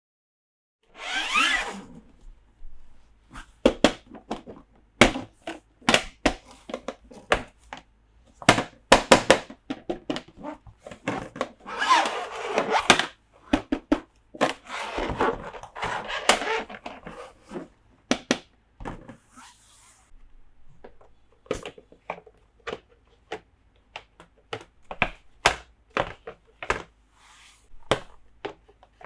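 Small toy pieces being handled: many sharp clicks, taps and knocks as the parts are set down and fitted together, with a few stretches of rustling packaging, one about a second in and more in the middle.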